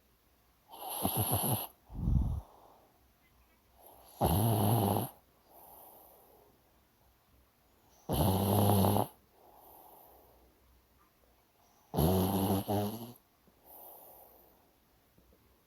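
A sleeping dog snoring. There are four loud snores about four seconds apart, each followed by a softer breath, and the first snore is followed by a short low snort.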